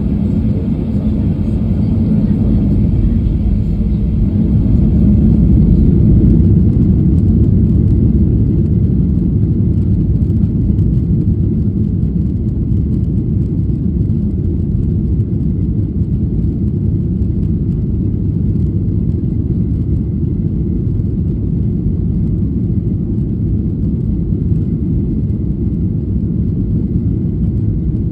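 Boeing 737-800's CFM56-7B jet engines at takeoff thrust, with the wheels rumbling on the runway during the takeoff roll, heard from inside the cabin: a loud, steady low rumble that swells a few seconds in.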